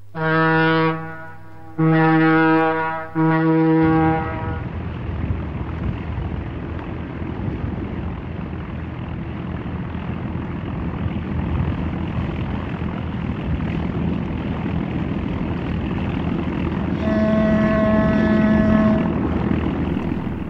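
A horn sounds three blasts on one low pitch, each about a second long. A steady rushing noise follows, and another horn tone sounds near the end.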